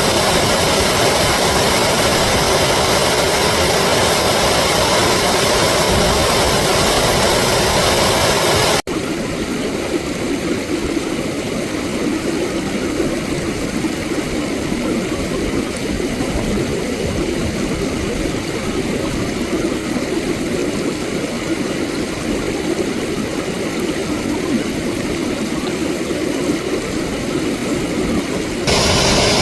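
Recording of flowing water played in reverse, a steady rushing noise. About nine seconds in it cuts abruptly to a quieter, duller rush, and it turns brighter again shortly before the end.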